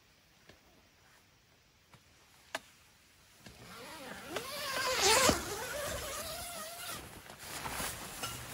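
Tent door zipper being pulled open, a rasping zip that builds over about a second and a half to its loudest a little past halfway. It is followed by softer rustling of the tent fabric as the door flap is pushed aside.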